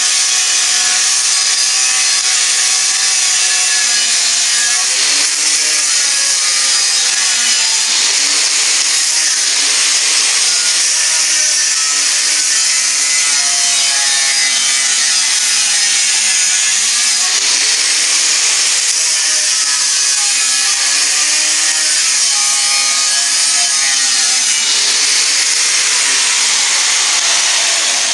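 Angle grinder with a cutting disc cutting through 10 mm stainless steel plate: a loud, continuous grinding screech, the motor's pitch wavering up and down as the disc bites under load. Right at the end the disc comes off the cut and the grinder's sound begins to die away.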